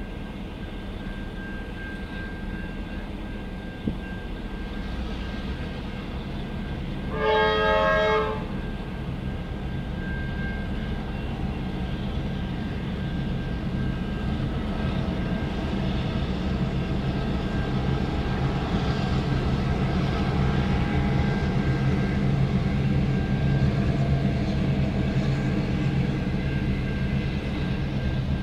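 Diesel locomotive engine running steadily and slowly growing louder as the train draws nearer; about seven seconds in it sounds its multi-tone horn once for about a second.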